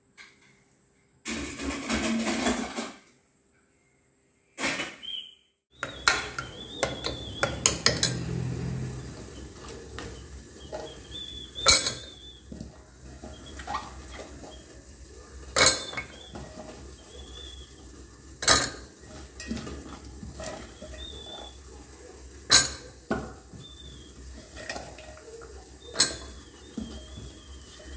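Metal kitchen clatter of steel pots and a ladle as cut vegetables go into a pressure cooker of cooked dal, with a sharp metal clink every three or four seconds.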